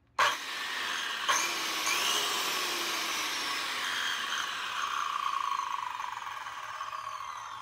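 DeWalt corded circular saw switched on with its lock-off button held, starting with a sudden click and whir and running free with no load. It then coasts down, its whine falling slowly in pitch and fading over several seconds.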